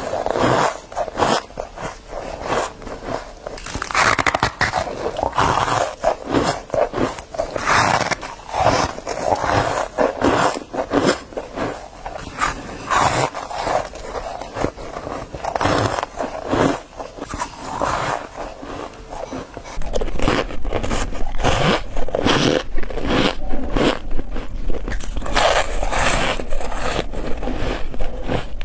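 Close-miked biting and chewing of soft freezer frost and snowy ice: squeaky crunches in quick succession. About twenty seconds in, the crunching becomes denser and more continuous, with a low hum under it.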